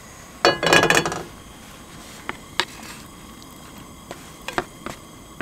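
Steel frying pan clattering and ringing against the camp stove's wire grate for about a second, followed by a few light clicks and taps as cubes of bear fat are dropped into the dry pan.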